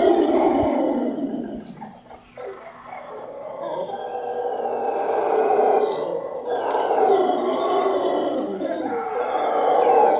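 Howler monkeys howling: long, rough, swelling roars that die down about two seconds in, then build again and hold, loudest near the end.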